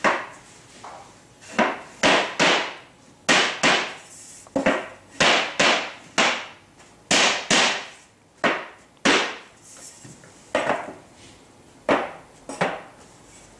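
Plasterboard being tapped with a feather edge to bed it onto dot-and-dab adhesive and bring it straight: a string of sharp knocks, irregularly spaced, one or two a second.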